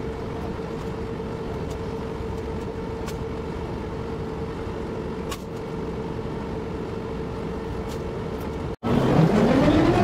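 Steady engine drone with a constant hum. About nine seconds in it cuts out for an instant, and a louder passage with rising, gliding tones begins.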